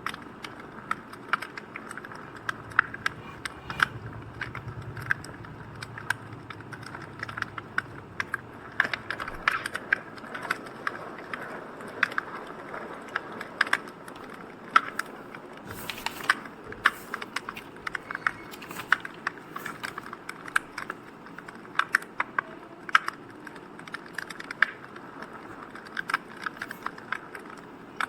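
Crackling fire: irregular sharp pops and snaps of varying loudness over a soft, steady hiss.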